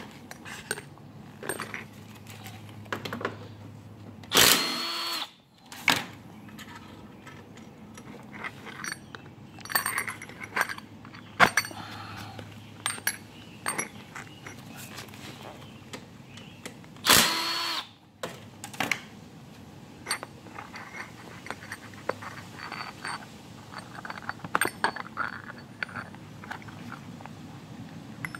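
A power drill with a socket runs in two bursts of about a second each, spinning 8 mm bolts out of a GY6 scooter engine's side cover. Light metal clicks and clinks of bolts and tools come in between.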